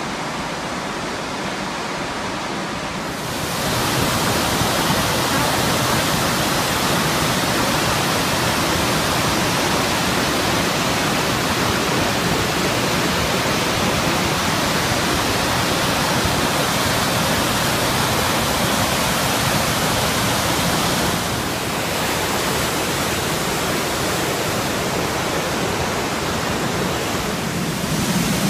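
Middle North Falls, a 106-ft waterfall, rushing in a steady, loud, unbroken noise heard close to the falling water. It gets louder a few seconds in and dips slightly about two-thirds of the way through.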